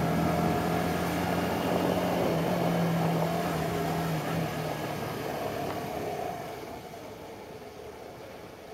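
Cruiser motorcycle engine running at a steady pitch on the move, under wind and road noise. The engine tone drops away about four seconds in, and the sound grows quieter over the last couple of seconds.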